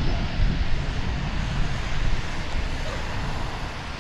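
Gulfstream G650's Rolls-Royce BR725 turbofan engines running at taxi power as the jet rolls by, under gusty wind buffeting the microphone.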